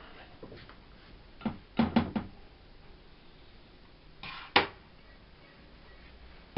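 Clicks and taps of watercolour painting gear being handled while paint is mixed: a small cluster of taps about a second and a half in, and a sharper one about four and a half seconds in.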